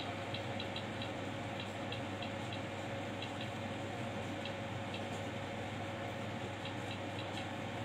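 Steady background hiss with a low hum and a thin steady tone, broken by faint, irregular light ticks.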